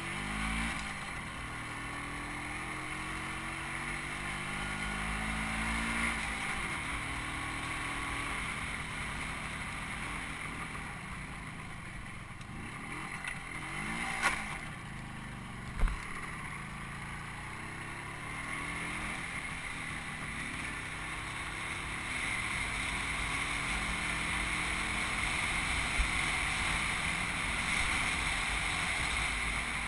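Small motorcycle engine running while riding, its pitch rising and falling with the throttle, with wind on the microphone. A few sharp knocks about halfway through and again near the end, as the bike jolts over rough road.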